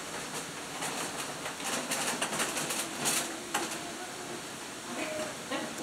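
A quick run of soft clicks and rustles over a steady hiss, dying away after about three and a half seconds, with faint voices about five seconds in.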